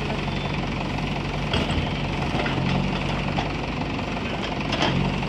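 Tractor engine running steadily at a low, even pitch, with two sharp knocks, one about one and a half seconds in and one near the end.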